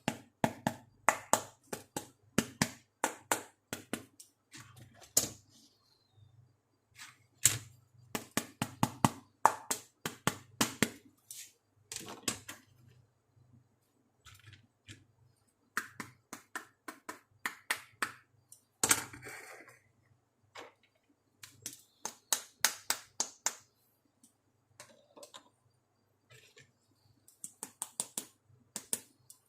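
Sharp plastic clicks and taps in quick runs with short pauses, from the pieces of a toy makeup kit being handled and opened. About nineteen seconds in there is a brief scratchy noise.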